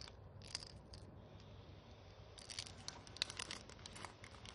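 Faint crinkling and clicking as a minnow fishing lure and its plastic packaging are handled, in two spells of quick crackles: one in the first second, then a busier one from about two and a half seconds in to about four.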